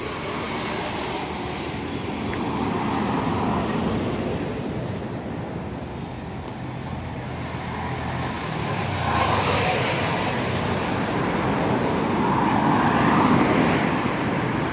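Road traffic: vehicles passing one after another on a paved street, the noise swelling and fading as each goes by, loudest near the end.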